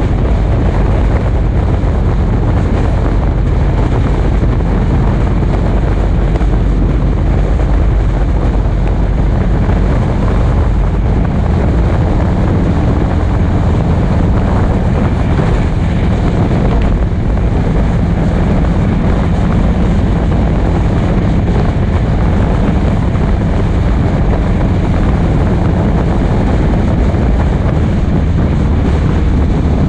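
The engine of a vehicle cruising steadily along a road, with wind noise over it.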